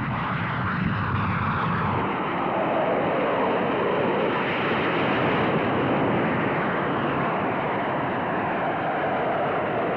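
Jet aircraft flying past low, a continuous jet roar that drops in pitch over the second half as it goes by.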